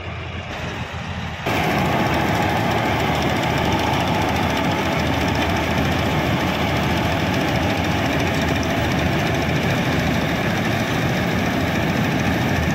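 Combine harvester engine running steadily. It is fainter for the first second and a half, then suddenly louder and closer, a Dasmesh 912 combine's engine.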